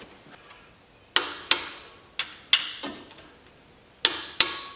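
Click-type torque wrench clicking as it reaches its 30 lb-ft setting on intake manifold bolts being rechecked for tightness: seven sharp clicks, several in quick pairs.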